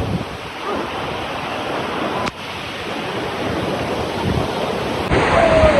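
Waterfall with its rushing water making a steady loud roar, with a sudden brief dip about two seconds in and louder again near the end.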